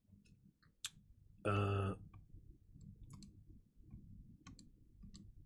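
Scattered light clicks of a computer mouse while a web page is scrolled, with one short vocal sound from a person about one and a half seconds in.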